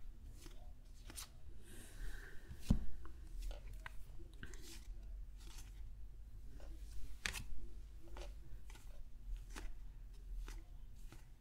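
Baseball cards being flipped through by hand, the thin card stock sliding and clicking as each card is moved from the front of the stack to the back, with a brief rustle and one soft thump about two and a half seconds in.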